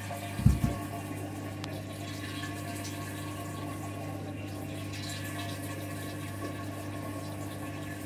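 Candy washing machine's drain pump humming steadily, with water running out of the drum as the delicate spin phase begins. A single low thump about half a second in.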